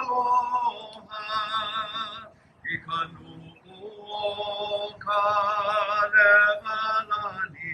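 A man singing solo and unaccompanied, holding long notes with a strong, wavering vibrato in short phrases with brief pauses between them.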